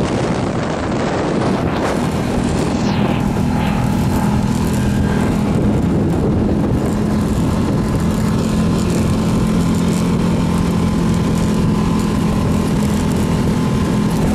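Off-road buggy engine running steadily on a dirt track, heard from on board, with a constant drone and no revving.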